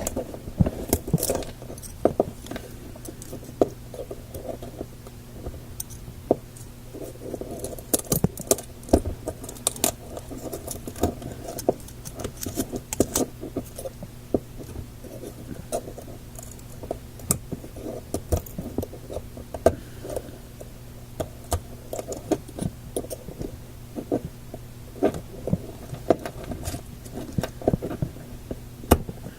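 Irregular small clicks, taps and scrapes of hand work picking dried-up, squashed-flat rubber packing out from behind a tube radio's glass dial, over a steady low hum.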